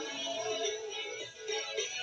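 A recorded song played over the radio, a singer's voice over the band.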